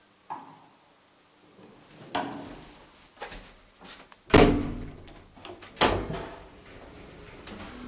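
Old ZREMB traction elevator being sent off: a heavy clunk right after the floor button is pressed, then a second clunk about a second and a half later. Near the end a steady hum sets in as the two-speed machinery starts.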